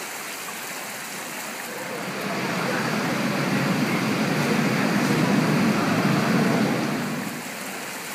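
Water rushing steadily from a burst water pipe flooding a street. A vehicle passes through, growing louder from about two seconds in and fading away near the end.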